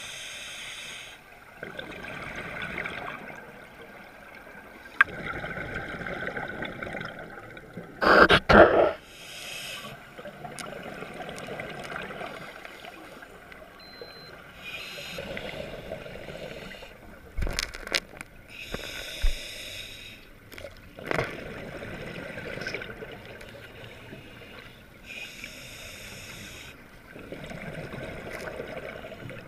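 Scuba diver breathing through a regulator underwater: bubbling, gurgling exhalations recurring every few seconds. A few sharp knocks cut in, the loudest a quick double knock about eight seconds in.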